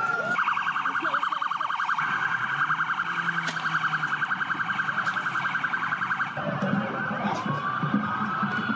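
Emergency vehicle siren sounding in a rapid, pulsing warble for about six seconds, then switching to a slow wail that rises and falls.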